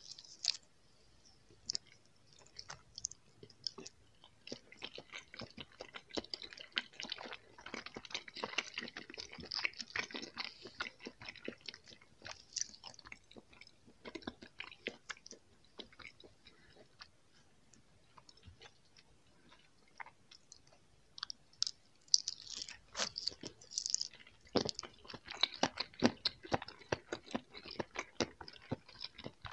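Chewing of soft jelly candies, a dense run of quick wet mouth clicks and smacks, dying down for several seconds in the middle before picking up again.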